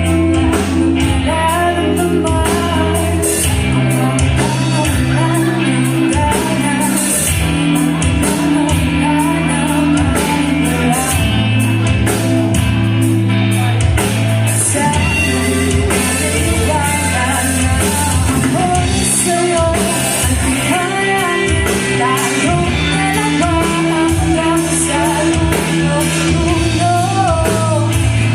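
Live band playing a pop-rock song: a singer over bass, guitar and drums, with a steady beat.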